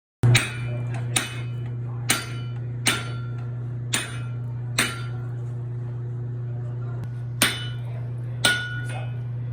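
Hammer blows ringing on metal, about eight strikes spaced roughly a second apart with a pause in the middle, over a steady low hum.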